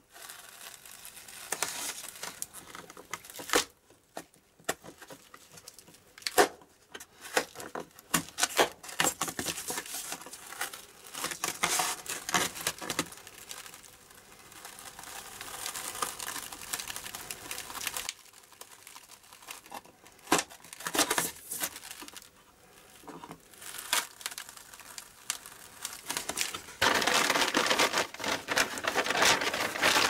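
Double-sided adhesive tape being handled: pulled off the roll, torn and its backing peeled, with irregular crinkling and crackles. Near the end there is a longer, steadier tearing stretch.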